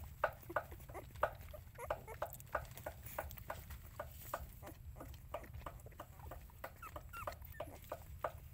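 A litter of young puppies making short, repeated whimpering squeaks, about three or four a second, over a low steady rumble.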